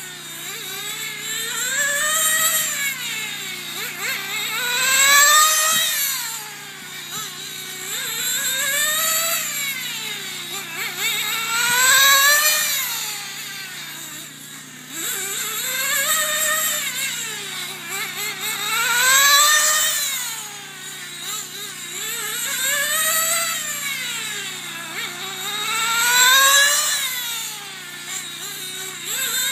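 1/10-scale nitro RC sprint car's small two-stroke glow engine running at high revs as it laps the oval, its whine rising and falling in pitch and loudness about every three and a half seconds, once each lap.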